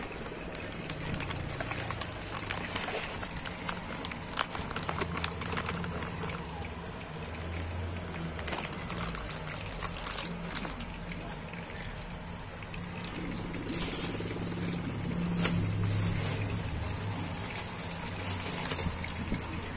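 Clear plastic bag crinkling and rustling with scattered clicks and handling knocks as pieces of milkfish are drawn out of it, over a steady low hum; a rise in hissy handling noise near the end.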